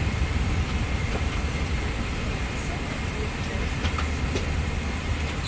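Steady low rumble of a vehicle in motion, heard from inside, with a few faint clicks over it.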